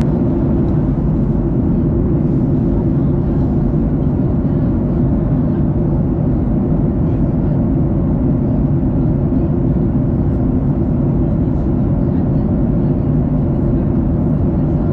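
Steady low rumble of engine and airflow noise inside a Boeing 737-800's passenger cabin.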